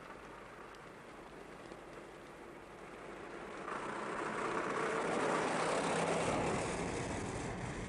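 A motor vehicle driving past, its rushing noise swelling about halfway through, with a low rumble joining before it eases off slightly near the end.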